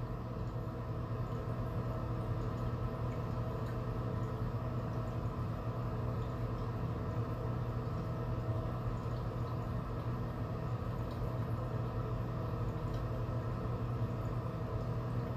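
Steady low hum with several constant tones over a light hiss, unchanging throughout, like a machine or electrical hum in the room.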